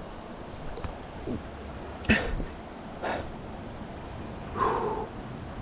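Four short, breathy huffs and exhalations from an excited man catching his breath, over the steady rush of a creek.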